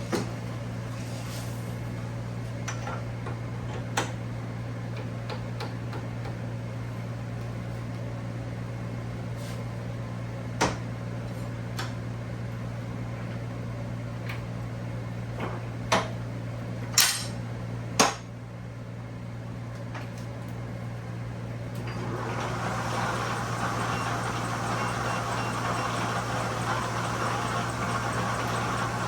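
1943 South Bend lathe running with a steady hum and scattered sharp clicks and knocks. About three-quarters of the way in, a louder, rough hissing noise sets in over the hum.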